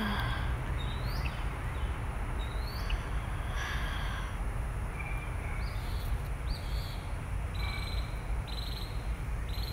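Birds chirping: a couple of short sliding chirps in the first few seconds, then a series of short buzzy notes repeating roughly once a second, over a steady low outdoor rumble.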